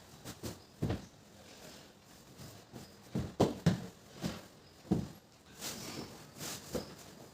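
Irregular soft knocks and thuds of household items being handled and set down while tidying a room, about a dozen in a few seconds, the loudest about halfway through.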